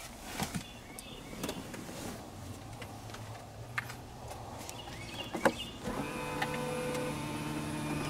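Scattered clicks and handling knocks, then a sharp click and a Tesla Model X power seat motor starting up about six seconds in and running with a steady hum, as the second-row seat is driven forward.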